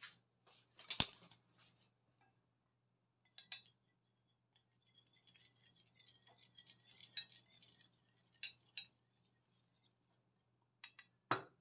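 Chopsticks beating raw egg in a porcelain plate: a run of quick light clicks against the plate, with a sharp knock about a second in and a few louder clinks near the end.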